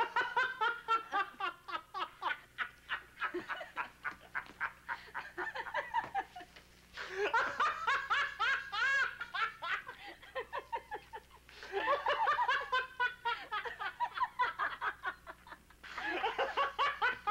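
A man and a woman laughing hard in long fits, breaking off and starting up loudly again several times.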